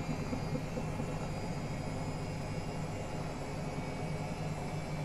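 Washing machine running with a steady mechanical hum.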